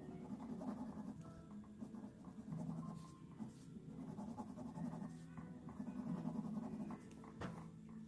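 Quick shading strokes of a drawing tool scratching on paper, over a steady low hum.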